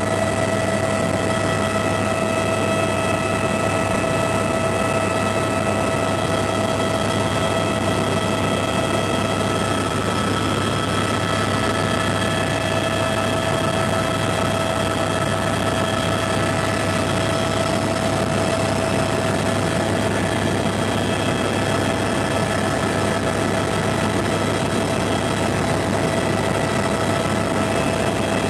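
Helicopter in flight, heard from inside the cabin: a steady turbine whine over a low rotor hum, unchanging throughout.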